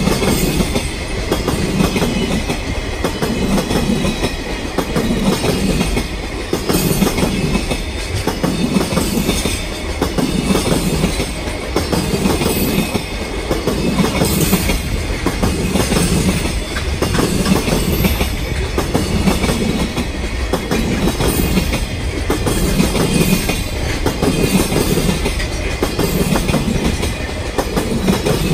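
Container wagons of a long freight train rolling past: a steady rumble with a rhythmic clickety-clack of wheels over rail joints, pulsing a little over once a second.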